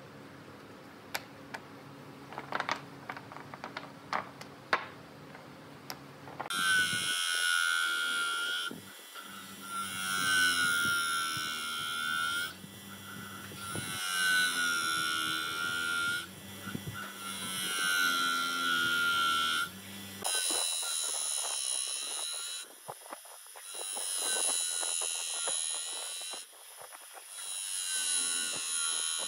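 A few wooden knocks over a low hum, then an electric bench grinder shaping a pine block: the wood is pressed against the spinning wheel in repeated passes of two to three seconds each, every pass a harsh grinding rasp with a steady high whine.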